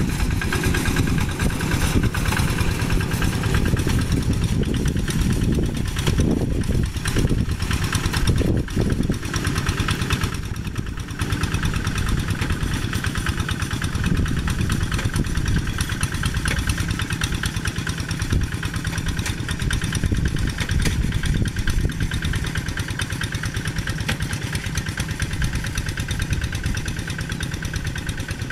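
Single-cylinder Kubota diesel engine of a Quick two-wheel hand tractor running steadily under load while the tractor works through paddy mud, with a rapid even firing beat.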